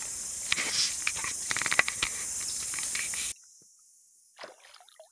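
Bare feet crackling and snapping through dry leaf litter and twigs, over a steady high hiss. About two-thirds of the way through the sound cuts off abruptly to a much quieter background, with a soft splash of river water near the end.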